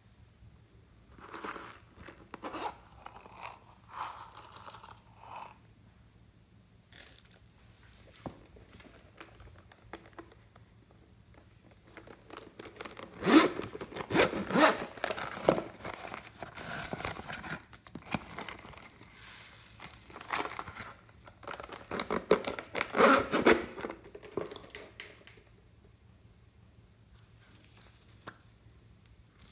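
A zip on a red zippered case is drawn open in two long, loud runs of rapid clicking and scraping, about halfway through and again about two-thirds through. Quieter clicks and rustling come from makeup containers being handled.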